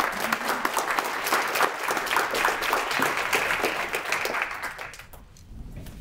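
Audience applauding, a round of clapping that fades out about five seconds in.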